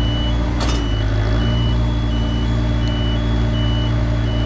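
Skyjack boom lift's motion alarm beeping steadily in two alternating high tones over a steady running diesel engine, with one sharp click a little over half a second in.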